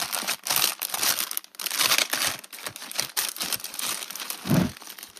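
Clear plastic bags of chipboard pieces crinkling and rustling as they are flipped through by hand, with one short low thump about four and a half seconds in.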